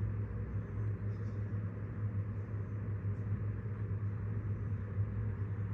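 Steady low hum with a faint even background noise.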